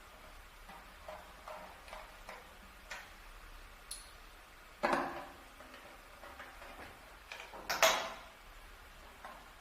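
Scattered light taps and clicks at an uneven pace, with two louder knocks about five and eight seconds in, each ringing briefly.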